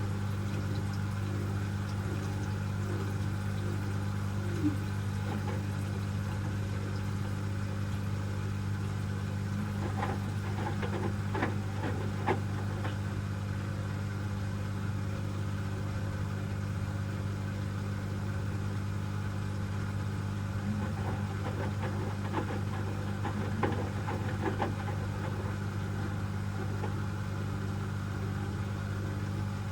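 Asko W6098X front-loading washing machine in its wash phase: a steady motor hum as the drum turns, with spells of water and laundry sloshing and light knocks in the drum.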